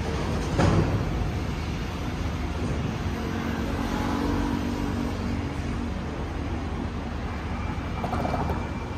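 Road traffic at an intersection: motor scooters and cars passing, with a scooter engine humming by around the middle. There is a sharp loud noise about a second in, and a thin steady high tone begins near the end.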